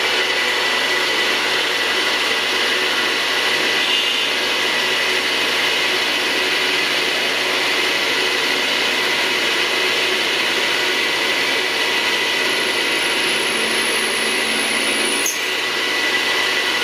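Drill press running steadily with a 4.5 mm cobalt bit cutting out old threaded screws in a cast carburettor body: an even motor whine with one constant tone. A thin high whistle comes in near the end and cuts off with a click.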